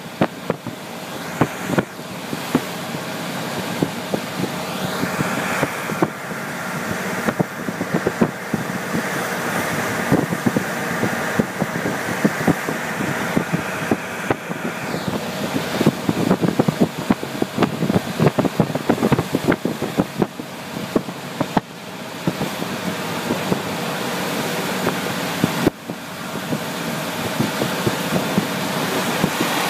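KiHa 48 diesel railcar under way, heard from inside: the diesel engine running and the wheels rolling on the rails, with many short clicks and knocks throughout.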